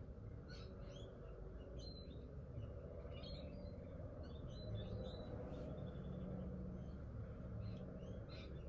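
Birds chirping in short, scattered calls over a steady low background hum.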